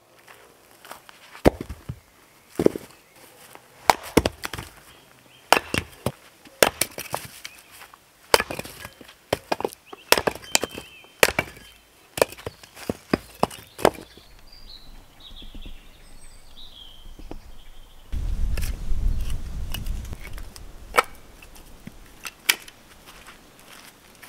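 Axe splitting firewood rounds: a run of sharp chops, each with the crack of the wood splitting apart, coming thick and fast through the first half, then two more strikes near the end.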